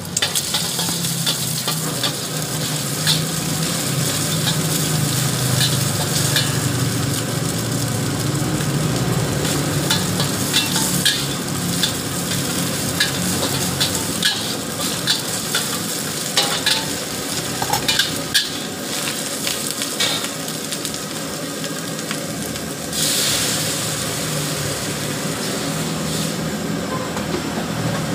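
Egg and greens sizzling in a hot steel wok, stirred and tossed with a long metal ladle that knocks and scrapes against the pan again and again. The sizzle suddenly gets louder about two-thirds of the way through.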